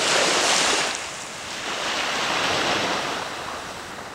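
Small waves breaking and washing up on a sandy beach: one surge right at the start and a second, softer one about two seconds in, fading toward the end.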